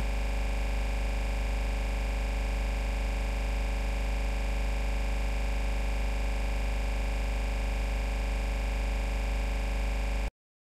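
Steady electronic synthesizer drone over a deep low hum, unchanging throughout, that cuts off suddenly near the end.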